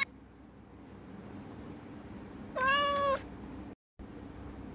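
A domestic cat gives a single short meow about two and a half seconds in, over a faint steady background hum; the sound cuts out to silence for a moment about a second later.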